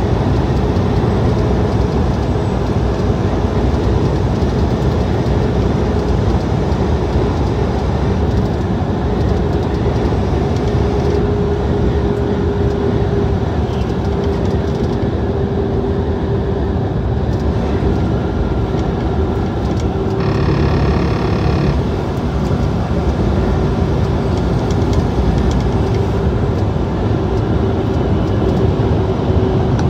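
Steady drone of a semi truck's engine and road noise heard inside the cab at highway speed. A brief higher-pitched tone sounds about twenty seconds in.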